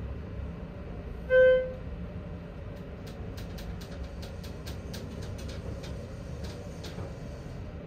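Schindler 330A hydraulic elevator car running with a steady low hum. A single short electronic beep sounds about a second and a half in, the loudest sound. From about three seconds to seven seconds there is a run of sharp, irregular clicks.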